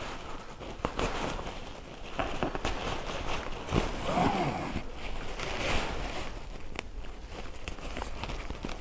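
Hand-sewing through a kayak's fabric skin: the fabric rustles and crinkles as a needle is pushed through, with a few sharp ticks. About four seconds in, the thread is drawn out through the cloth with a zipping rasp.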